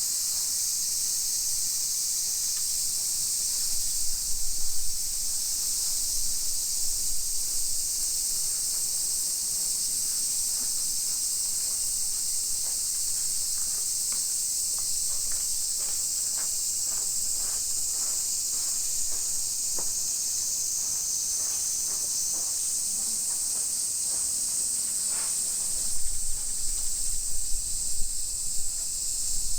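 Steady high-pitched insect chorus with no break, and a low rumble near the end.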